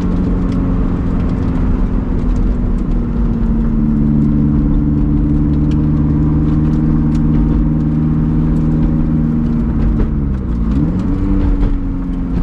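Supercharged 1.8-litre Toyota 2ZR four-cylinder engine of a Lotus Elise Sport 220 II running steadily under way, heard from inside the cabin. About ten and a half seconds in, its pitch dips sharply and climbs back, as at a gear change.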